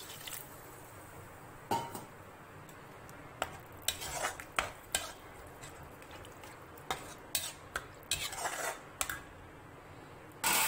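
Perforated metal ladle scraping and clinking against an aluminium kadai while stirring water into a curry masala, in irregular strokes with a louder clank near the end.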